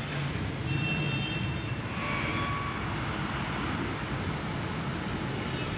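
Steady road traffic noise, with a couple of short, faint tones about a second and two seconds in.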